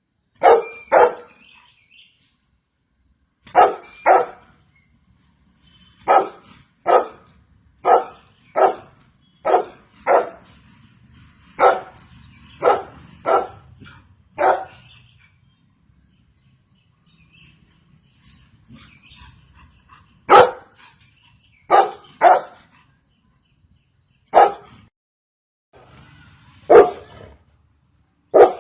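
Golden retriever barking: about twenty short, loud barks, often in quick pairs, coming in runs with a pause of about five seconds a little past halfway.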